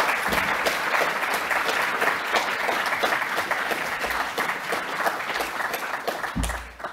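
Audience applauding after a talk; the clapping dies away near the end.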